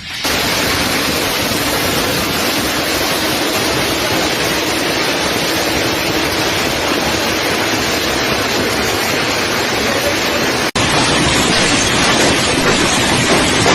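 Heavy hailstorm: a dense, loud, steady hiss of hail pelting down. A cut to a second recording of the same downpour comes about eleven seconds in.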